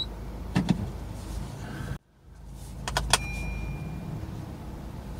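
Car running, heard from inside the cabin: a steady low hum with a few sharp clicks, a sudden brief dropout about two seconds in, and a short beep just after three seconds.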